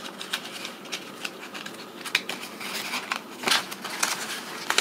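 Sheets of old paper instructions being unfolded and leafed through by hand: an irregular crackly rustling with small snaps of paper.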